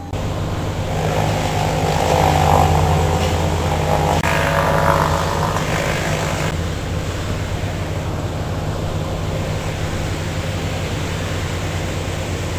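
Heavy engine running steadily with a low drone. It is louder with extra rough noise for the first few seconds, then settles to an even note about six and a half seconds in.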